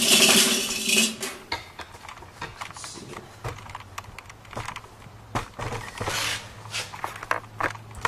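Thin sheet-metal sleeve and metal pipe being handled and turned over on a concrete floor: a louder scraping rustle in the first second, then scattered light metallic clinks and knocks over a faint steady low hum.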